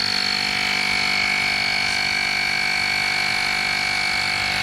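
EAFC cordless rechargeable air compressor running at a steady pitch, a high whine over a steady hum, as it inflates a low bicycle tire.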